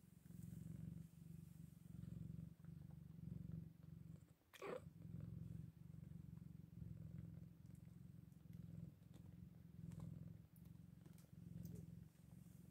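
Scottish Fold cat purring softly in even pulses, one per breath. About a third of the way in the purr breaks briefly and there is a short high squeak.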